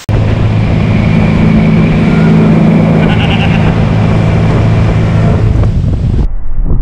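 Speedboat engine running at speed towing a ride tube, a steady low hum under a loud hiss of wind and rushing wake water. Near the end the sound turns abruptly duller.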